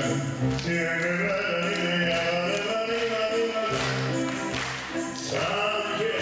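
A man singing a theatrical stage song over instrumental accompaniment.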